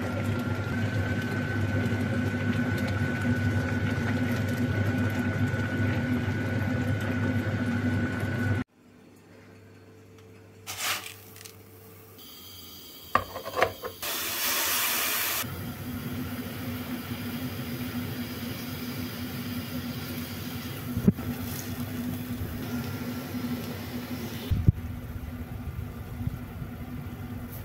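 Steady hiss of food cooking in a pan, broken around the middle by a few clicks and a short burst from an electric mini chopper.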